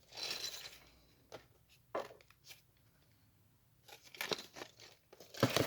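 Small LEGO sets being handled: a short burst of rustling at the start, then scattered light clicks and knocks, with a cluster a little before the end and the loudest knock at the very end.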